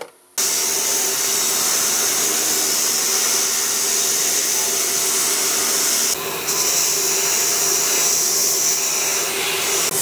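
A short click, then a loud, steady hiss of rushing air starting just under half a second in, easing briefly about six seconds in before carrying on.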